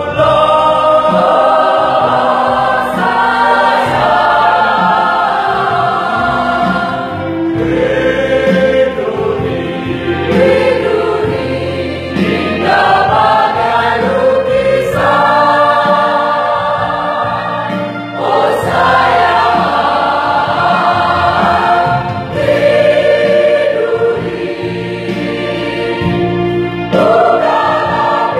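Mixed choir of men and women singing an Indonesian nostalgic pop song in harmony, in phrases a few seconds long.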